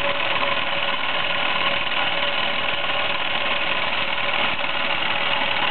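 Meccano MEC1 toy steam engine running steadily on test, exhaust steam hissing out with the whir of its Meccano gear train driving the twin propeller shafts.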